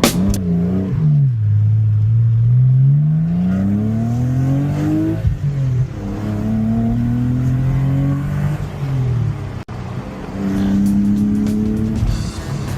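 Porsche 986 Boxster's flat-six engine pulling through the gears: its pitch climbs steadily for a few seconds, drops at a gear change about five seconds in, holds steady, falls away, then holds steady again near the end after an abrupt break.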